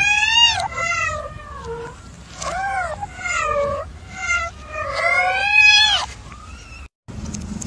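A white kitten meowing again and again, five or six high calls in a row, each rising then falling in pitch.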